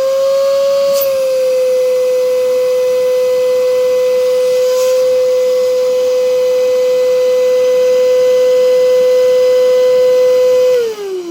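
Nilfisk Buddy II 18 T wet/dry vacuum cleaner's 1250 W motor running with a loud, steady high-pitched whine, then switched off near the end, its pitch falling as the motor spins down. The owner calls this unit noisy and says its bearings are worn out.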